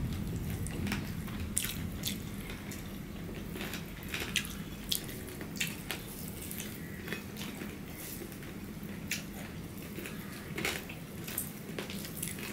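Close-up eating sounds of two people eating fried rice and curry with their fingers: chewing and mouth noises made up of many small, irregular clicks.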